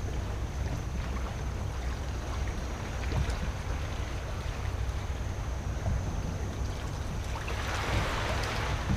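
Wind and water noise aboard a small boat at sea: a steady low rumble with a hiss of water over it, and a rush of water swelling up near the end.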